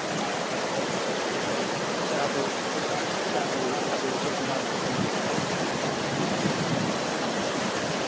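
Fast, muddy floodwater rushing in a swollen river: a steady, unbroken roar of water.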